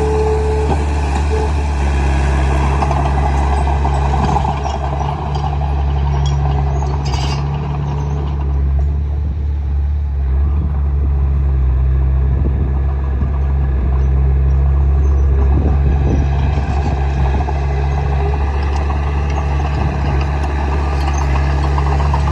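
Bulldozer's diesel engine running steadily with a low drone as it pushes soil.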